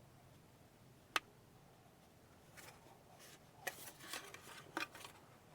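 Handling of a plastic trim cover as its tabs are fitted: one sharp click about a second in, then a few faint clicks and rustles.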